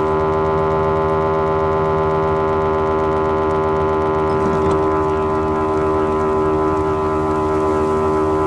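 John Deere 8700 self-propelled forage harvester running, heard from inside its feed-roll throat as the feed rolls turn empty with no crop. It makes a loud, steady mechanical whine of several held tones over a low rumble, with no change in pitch.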